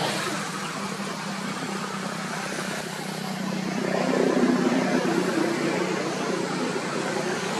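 Road traffic: a steady engine hum with a vehicle passing, swelling about four seconds in and then easing off.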